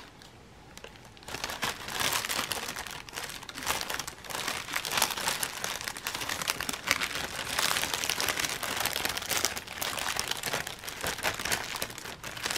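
Clear plastic zip bags and a loose plastic wrapper crinkling as a hand rummages through a pile of bagged diamond-painting drills, starting about a second in.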